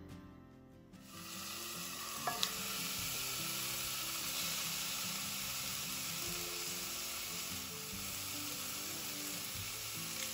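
Steady hiss of a lit gas stove burner under a pot, starting about a second in, with soft background music beneath it and a single light click about two seconds in.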